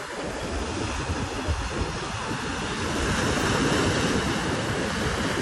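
Ocean surf: small waves breaking and foaming water washing through the shallows, swelling louder about three seconds in as a wave breaks.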